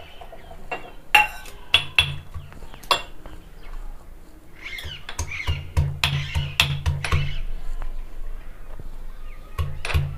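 Ginger and garlic being pounded in a small steel mortar with a metal pestle, giving sharp metal-on-metal knocks. A few scattered strikes come first, then a run of quick, regular blows about four or five a second past the middle, and another run starts near the end.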